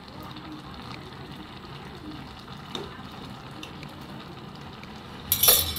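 Taro leaves simmering in a wok and being stirred with a spatula: a steady wet bubbling hiss, with a faint knock about three seconds in and a short, loud clatter near the end.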